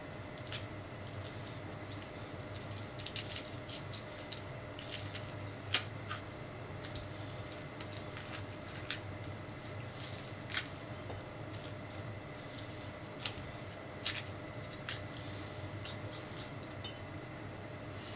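A metal spoon scooping the flesh out of a halved orange: wet squishing of the juicy pulp, with scattered short clicks of the spoon against the peel and bowl, the sharpest about six seconds in. A steady low room hum runs underneath.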